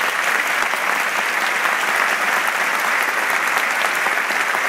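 Large auditorium audience applauding steadily, a dense even clatter of many hands clapping.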